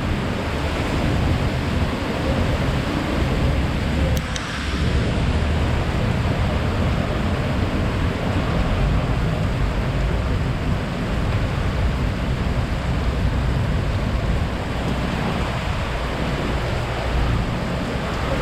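Typhoon wind blowing hard and unbroken, with a deep rumble of the wind buffeting the microphone.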